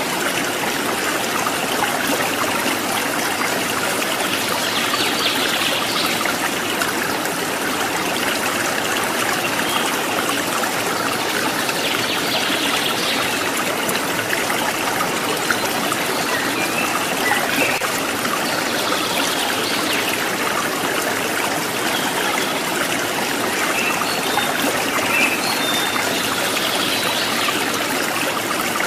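Steady sound of running water, like a flowing stream, with no breaks or changes.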